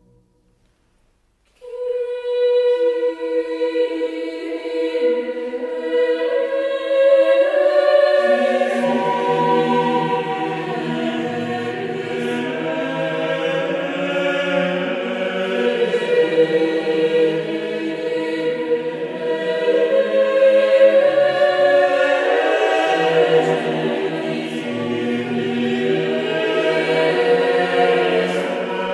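A choir singing slow music in long held notes. After a second and a half of silence a single held note enters, more voices join so that the sound fills out into sustained chords, and lower voices come in about eight seconds in.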